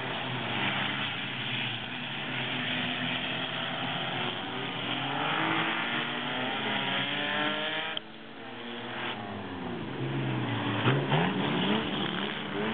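Several six-cylinder figure 8 race cars' engines running together, their pitch rising and falling as they accelerate and back off. The sound drops off suddenly about two-thirds of the way in, then an engine revs up loudly near the end.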